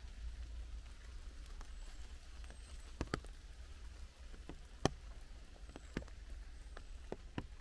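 Light rain in woodland: scattered raindrops tap at irregular moments, the sharpest about three and five seconds in, over a faint hiss and a low steady rumble.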